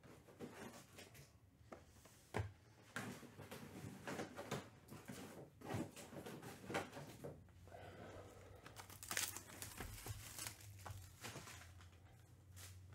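Trading card pack wrappers crinkling and tearing open, with the cards being handled: a steady run of short, irregular rustles and clicks.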